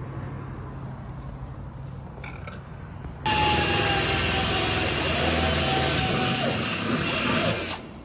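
Cordless drill running at speed, drilling through a side skirt's mounting tab. It starts sharply about three seconds in, runs for about four and a half seconds with a steady motor whine that dips a little in pitch partway, then stops sharply.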